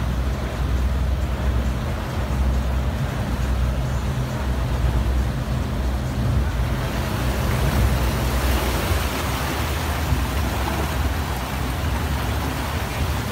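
Speedboat engine running steadily under way, a low drone. About halfway through, a rushing of wind and water over the moving boat grows louder.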